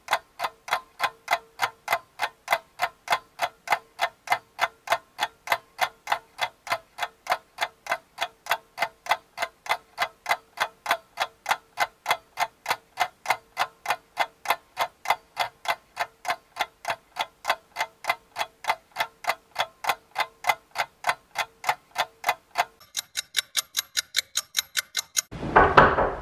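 Ticking clock, a steady rapid tick-tock at about three ticks a second over a faint steady hum, marking time spent waiting. The ticking changes character near the end, and a louder sound breaks in just before the end.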